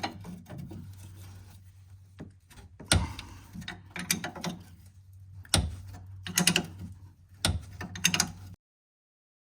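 Ratchet wrench clicking and metal clinking in several short bursts as the 18 mm nut is worked off a sway bar link stud held with vise grips, over a low steady hum. The sound cuts off suddenly near the end.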